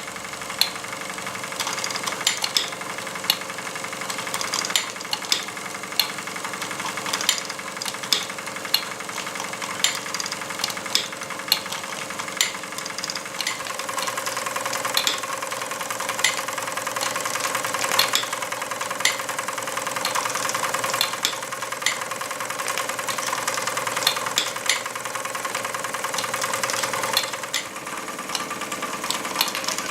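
Doll & Fleischmann tin toy blacksmith driven by a live-steam model engine through a pulley: the works rattle and whir steadily, with sharp metallic ticks of the hammer about once a second.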